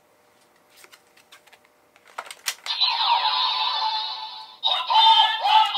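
Plastic clicks as a Kamen Rider Gotchard sound toy is worked with a RideChemy card. About two and a half seconds in, the toy's electronic sound effects and music start loud, break off briefly, then resume.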